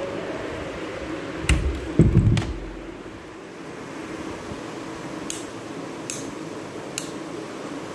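Handling noise from a phone camera being moved and set in place: a few dull thumps and rubbing about a second and a half in, then a few faint ticks, over a steady low room hum.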